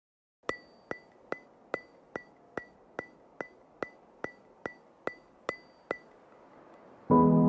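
A steady run of sharp percussive ticks, about two and a half a second, each with a short ringing pitch, as a music track's beat. The ticks stop about six seconds in, and sustained keyboard music begins near the end.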